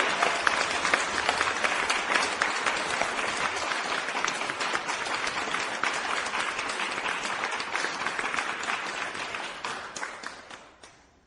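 Crowd applauding, a dense run of many hands clapping that thins and dies away over the last second or so.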